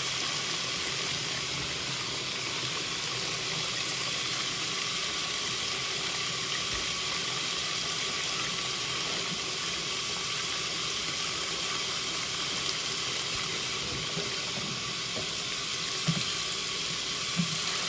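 Washing machine filling with water: a steady rushing hiss, with two soft thumps near the end.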